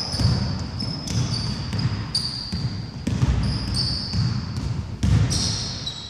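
Sneakers squeaking on a wooden basketball court, many short high squeaks one after another, over the repeated low thuds of a basketball being dribbled and feet landing.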